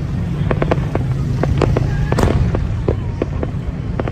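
Fireworks going off in a rapid string of sharp bangs and crackles, with a louder burst about two seconds in, over a steady low rumble.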